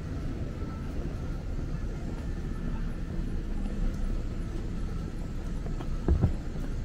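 City street ambience: a steady low rumble of traffic, with two loud thumps close together about six seconds in.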